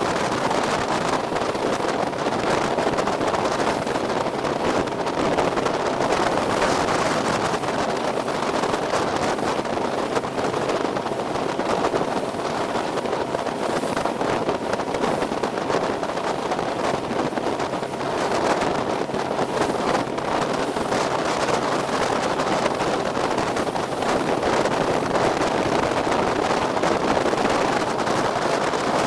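Small motorboat under way: a steady mix of engine noise and rushing water, with wind buffeting the microphone.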